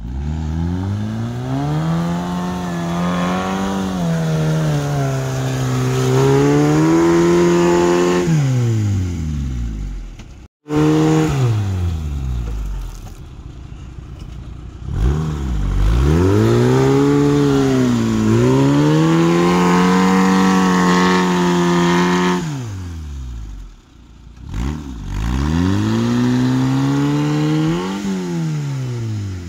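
Engine of a lifted ZAZ Zaporozhets 4x4 revving hard again and again as it tries to drive out of deep mud, each rev rising and falling. It is stuck, its wheels spinning with too little tyre tread to grip. The sound breaks off briefly about a third of the way through.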